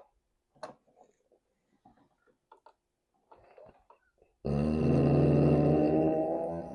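Faint mouth and chewing clicks, then about four and a half seconds in a long, loud, deep burp that holds for over two seconds before trailing off.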